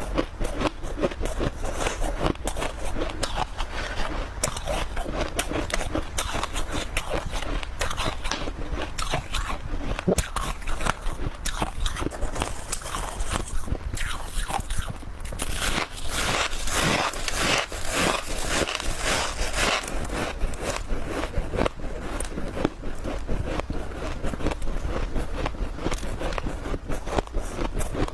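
Close-miked biting and chewing of ice: continuous crunching and crackling, with a louder, denser stretch a little past the middle.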